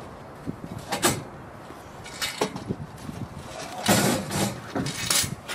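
Knocks and scrapes of a fibreglass catamaran hull section being handled: a sharp knock about a second in, a few lighter knocks, then louder scraping and rubbing near the end.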